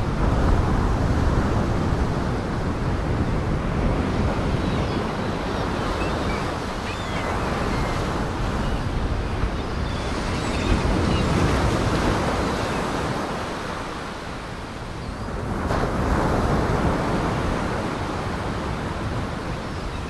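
Storm waves surging and breaking, with wind. The rushing noise swells and eases, dips about three-quarters of the way through, then builds again.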